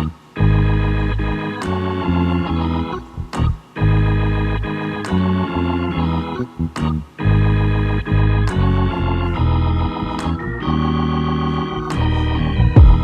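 Background music of sustained, organ-like keyboard chords that change every second or two, with sharp clicks between them.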